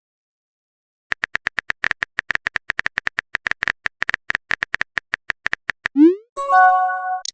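Phone keyboard typing sound effect: rapid short tapping clicks, about eight a second, for nearly five seconds. Then a quick rising swoop and a short pitched chat notification chime.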